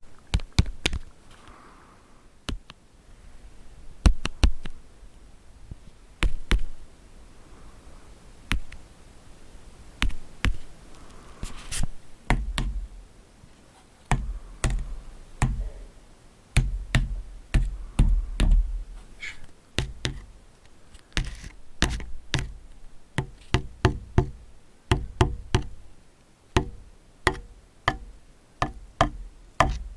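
Foley tapping: a long irregular series of sharp taps and light knocks. They are sparse at first, then come thicker and heavier with more low thud partway through.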